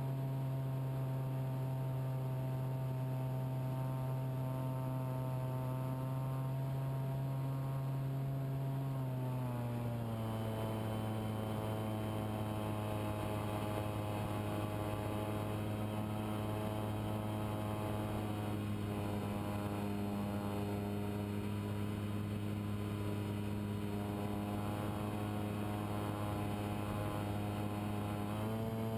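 RC model airplane's motor and propeller droning steadily in flight. The pitch drops about ten seconds in and rises again near the end as the throttle changes.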